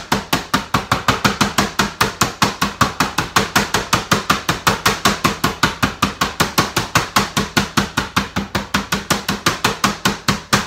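Meat mallet pounding a split boneless chicken breast flat on a cutting board: quick, steady, evenly spaced blows, about five or six a second.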